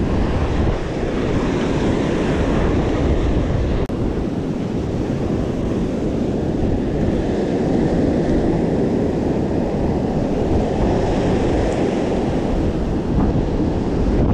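Ocean surf breaking on a beach, mixed with wind buffeting the microphone, making a steady noise.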